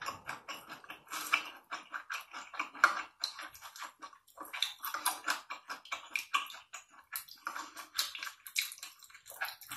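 Close-miked mukbang eating sounds of wet food being stirred and mixed in a bowl of loach soup with chopsticks: many quick, wet clicking and crackling sounds.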